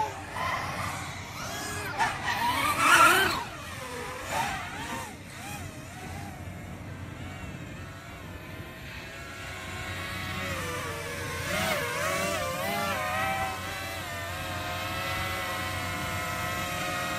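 Racing quadcopter's brushless motors (2205 KV2300) with four-blade 5040 propellers whining in flight, the pitch rising and falling with throttle and loudest about three seconds in. Near the end the whine settles to a steady pitch.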